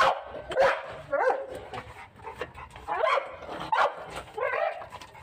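A dog barking repeatedly, a series of short barks spread across a few seconds.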